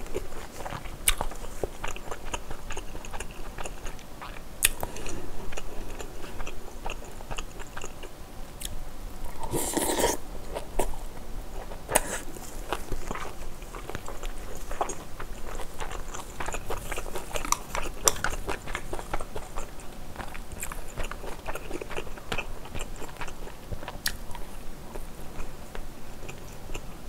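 Close-miked eating sounds: wet chewing, smacking and mouth clicks from a mouthful of braised pork kimchi stew with glass noodles, in an irregular run of many small clicks.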